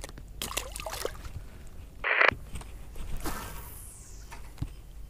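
Releasing a caught largemouth bass and recasting with a spinning rod: a few small handling clicks, a short loud splash about two seconds in, then the whoosh of the cast a second later and a small thump near the end.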